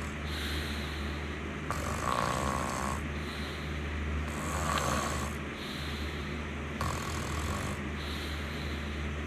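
Snoring: three snores, about two and a half seconds apart, over a steady low hum.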